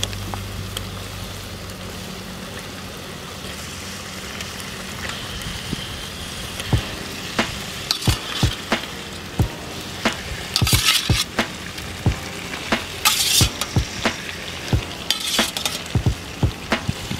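Onion-tomato masala sizzling in a metal pan over a wood fire. From about six seconds in, a slotted metal ladle clinks and scrapes against a steel plate and the pan as fried chicken livers are pushed into the gravy, with several louder bursts of scraping and sizzling.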